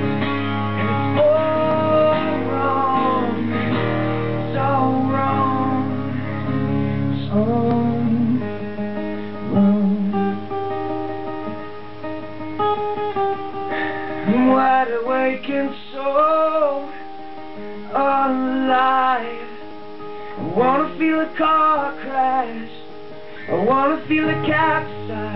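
Live solo acoustic guitar playing, with a man's wordless singing over it in the second half.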